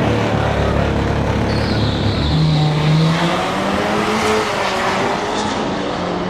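Two cars launching off a drag-strip start line and accelerating hard away down the strip. The engine note rises as they pull away.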